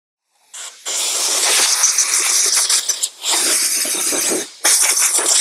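Compressed-air blow gun blasting grit and chips out of freshly tapped bolt holes in a cast-iron flywheel: a short puff, then three longer bursts of hiss that start and stop sharply.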